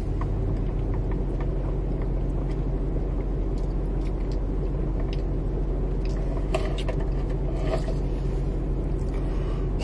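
Steady low hum of a car idling, heard from inside the cabin, with a few faint clicks and taps about two-thirds of the way through.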